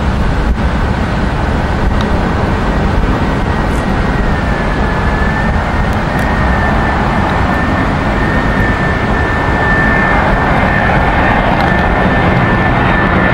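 Airbus A319-112 jet engines on landing approach: a steady rush of jet noise with a thin high whine that steps up slightly in pitch about four seconds in, growing gradually louder as the aircraft nears.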